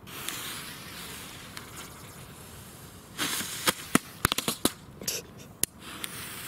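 A jet-flame torch lighter hissing as it lights small handheld novelty fireworks. About three seconds in, one goes off in a rush of sparks followed by a quick run of small sharp crackling pops lasting about two seconds, with no real bang. Near the end the lighter's hiss comes back as the next one is lit.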